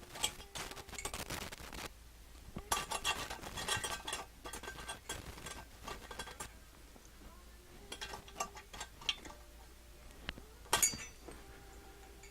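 Small metal parts and tools clinking and rattling as they are handled, in several short bouts of sharp clicks with a brief metallic ring; the loudest clink comes near the end.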